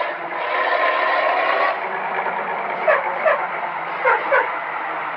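Road vehicle noise, steady and fairly loud. A faint held tone runs through the first second and a half, and a few short chirps come in the second half.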